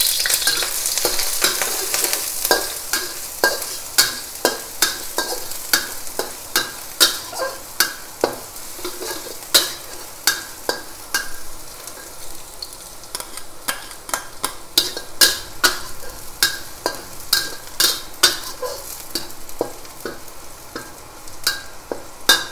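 Minced garlic sizzling in hot oil in a steel wok while a metal spatula stirs it, scraping and tapping the pan about twice a second. The sizzle is loudest at the start, just after the garlic goes into the oil, and then eases off.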